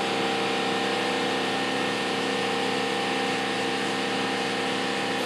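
A motor running at a steady speed, a constant pitched hum with a noisy hiss over it, starting abruptly.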